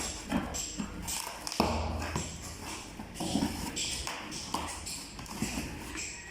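Handling noise from an unboxing: scattered light taps and rustles as the casserole and its packaging are moved about.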